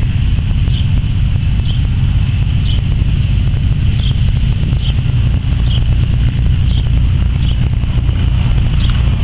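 Boeing B-17 Flying Fortress's Wright R-1820 Cyclone radial engines running on the ground: a loud, steady, deep rumble.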